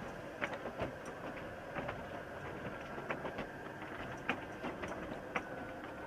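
Electric roller shutter garage door opening: a steady motor hum with a faint steady whine and scattered light clicks as the slats roll up.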